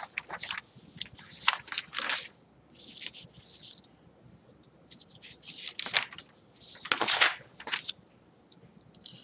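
Sheets of paper rustling and crinkling as they are handled and leafed through, in short irregular bursts with brief pauses.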